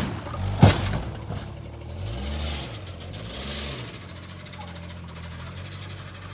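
Jeep Grand Cherokee ZJ after a hill jump: a single sharp bang a little over half a second in, the jeep coming down, then the engine revs up and down twice and settles to a steady idle.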